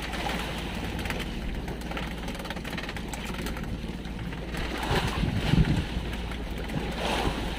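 Small fishing boat's engine running steadily with a low hum, under wind and water noise; a brief louder patch of noise comes about five seconds in.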